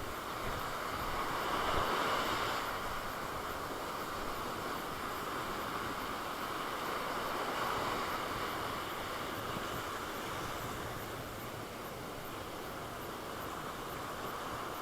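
Sea surf washing onto the beach, a steady rushing noise that swells about two seconds in and again near eight seconds.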